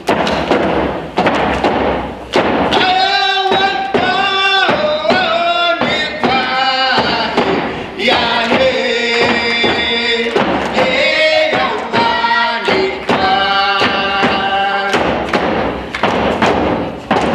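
First Nations hand-drum song: voices singing together over a steady beat of hide frame drums struck with beaters.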